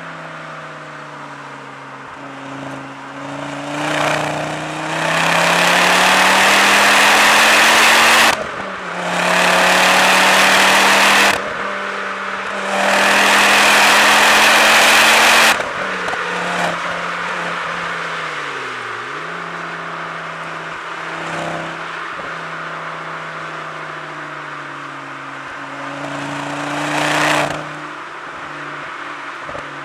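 Ford Focus ST's turbocharged petrol engine with a Milltek resonated exhaust under hard acceleration: three loud pulls, each rising in pitch and cut short by a quick upshift. Then it cruises with a steadier engine note, revs dipping once, one short surge near the end and revs falling at the close.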